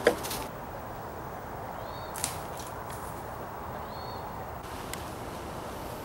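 Quiet outdoor woodland ambience on a disc golf course. A single sharp knock comes right at the start, a fainter click about two seconds in, and two faint high chirps come in between.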